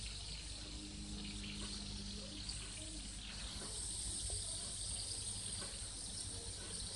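Fidget spinner spinning in the hand, giving a faint low steady hum over a soft hiss.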